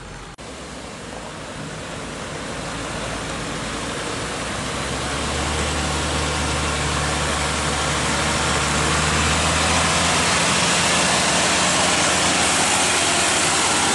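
MAN TGS 40.400 truck's diesel engine running as the tractor unit and its flatbed trailer roll slowly toward the camera and past it, growing steadily louder, with tyre and gravel noise as it comes close.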